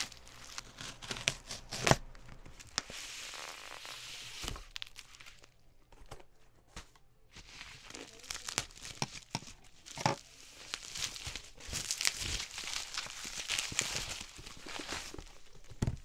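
Bubble wrap crinkling and rustling as a parcel is unwrapped by hand, with tearing sounds and scissors snipping through the plastic. Sharp clicks and knocks come in between, the loudest about two seconds in.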